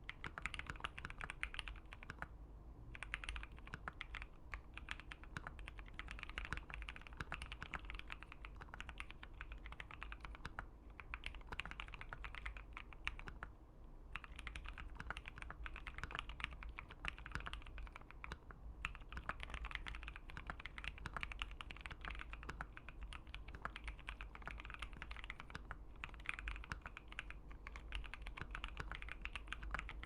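Steady typing on a Keychron Q1 mechanical keyboard with an FR4 plate, fitted with Gateron Phantom Brown switches: a fast, continuous stream of key clacks with two brief pauses.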